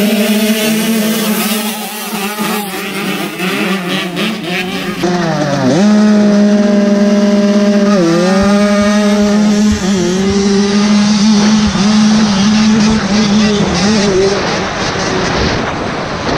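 Several small two-stroke motocross bikes revving and pulling away together. Then, from close on one bike, a single two-stroke engine runs hard at high revs, its pitch dropping and climbing back twice early on as the rider shifts or eases the throttle.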